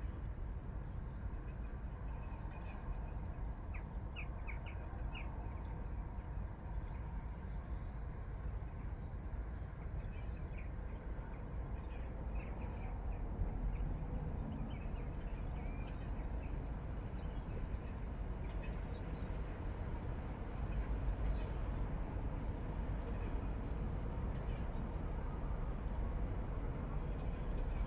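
Birds chirping in short, high clusters of calls every few seconds, over a steady low background rumble of outdoor ambience.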